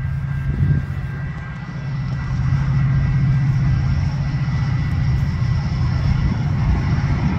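Train going by with a steady low engine rumble that grows louder about two seconds in, with faint thin high tones above it.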